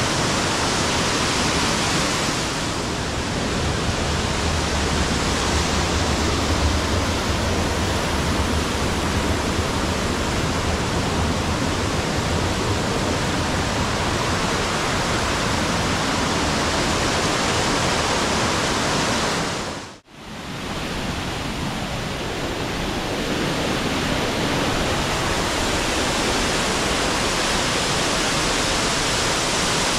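Waterfall of the Borovniščica stream swollen with high water: a steady, loud rushing of falling water. It drops out for a moment about twenty seconds in and comes straight back.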